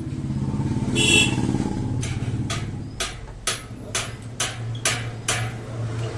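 A motor vehicle engine running steadily, with a brief high squeal about a second in. From about two seconds in come about eight sharp metallic knocks, roughly two a second.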